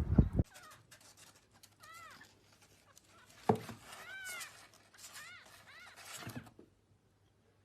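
A small animal giving about five short, high calls that rise and fall in pitch, with a single knock partway through.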